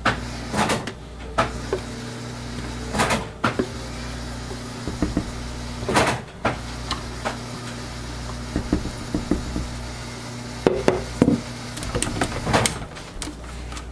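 Scattered clicks and knocks, about half a dozen, over a steady low hum, from a soap-making setup where liquid is poured into a plastic tub of oils with a stick blender standing in it.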